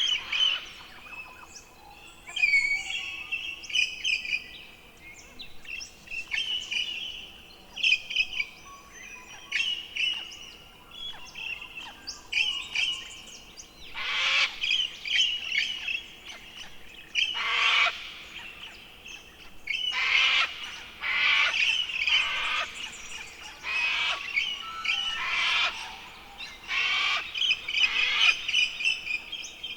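Birds chirping and whistling, with harsh, raspy calls repeating every second or two from about halfway through.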